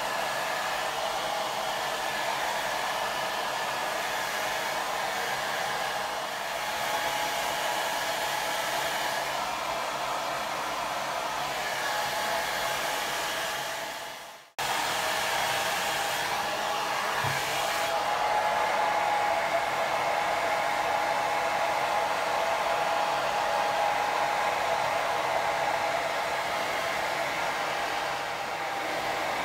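Handheld hairdryer blowing steadily on a dog's wet coat: a rushing hiss with a faint steady whine. The sound fades out briefly about halfway through and comes straight back.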